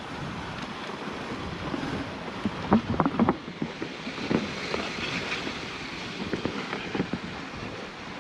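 Dog sled moving over a packed snow trail: a steady hiss of the runners on snow with wind on the microphone, and a few short knocks or creaks, a cluster of them about three seconds in.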